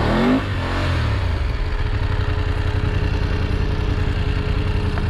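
Adventure motorcycle engine revving up briefly at the start, then running steadily at low revs.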